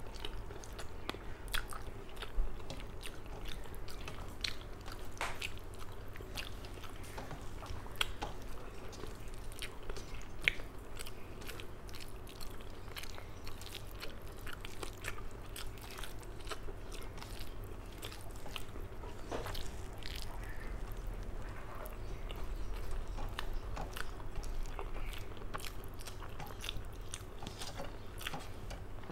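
Close-up chewing and wet mouth clicks of a person eating rice and curry by hand, with fingers working the food on a steel plate.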